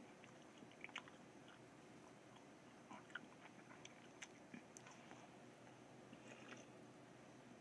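Very faint chewing of a wad of tissue paper: scattered soft, wet mouth clicks over a steady background hiss.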